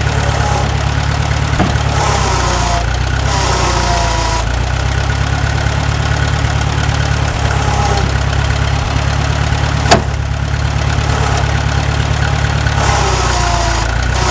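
IH 350 Utility tractor's gasoline engine idling steadily. Twice, for a couple of seconds, a hiss with a wavering whine comes in as the loader hydraulics are pushed down to lift the front end, which they are not strong enough to do. A single sharp click about ten seconds in.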